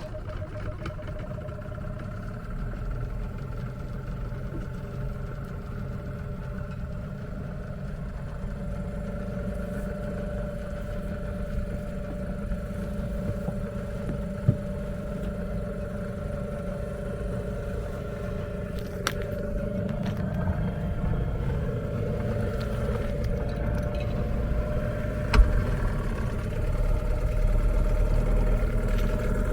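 Small outboard motor on a dinghy running steadily underway, with a low rumble beneath it and a little louder near the end. Two sharp knocks, one about halfway through and one near the end.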